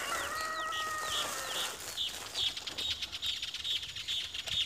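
Birds chirping in quick repeated high notes, several a second, growing busier after the first two seconds. Over the first second and a half a rooster's crow is held and then trails off, falling slightly at the end.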